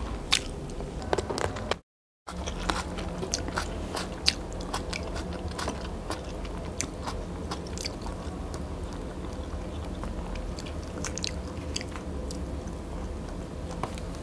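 A person chewing food close to the microphone, with many small wet mouth clicks. The sound cuts out completely for about half a second near two seconds in.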